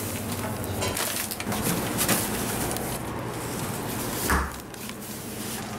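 Packets of sugar and yeast being handled, crinkling, with a few sharp knocks and a heavier thump a little past four seconds in, over a steady low hum.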